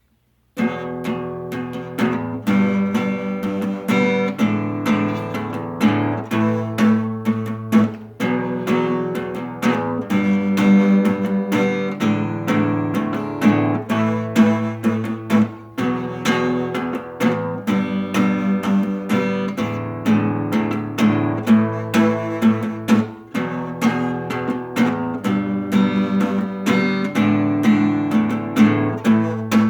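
Guitar strumming chords in a steady rhythm, starting about half a second in: the instrumental intro of a song, before the vocals come in.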